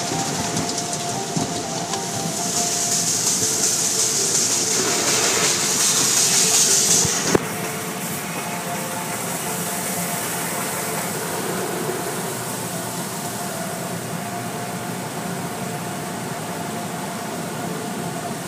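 Automatic tunnel car wash heard from inside the car: water spray and cloth brushes working over the windshield and body, muffled by the glass. A loud spray hiss swells and then cuts off suddenly with a knock about seven seconds in, after which a softer, steady wash of water and machinery continues.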